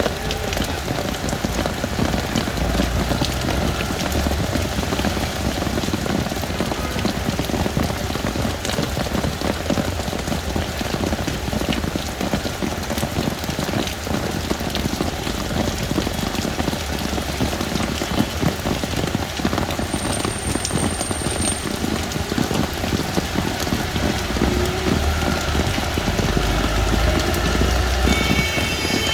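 Heavy rain falling steadily on hard surfaces, a dense patter of drops, with a low rumble now and then.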